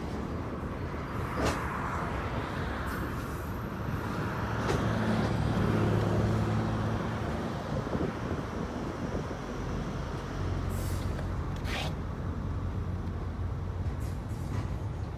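Intermodal freight train wagons rolling past: a steady rumble of wheels on rail with a few sharp clicks, and a low hum that swells about four seconds in and again after ten seconds.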